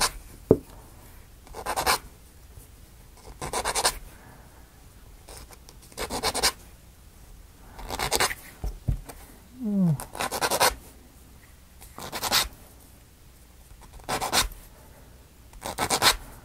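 Metal file rasping across small plywood model parts in short strokes, about one every two seconds.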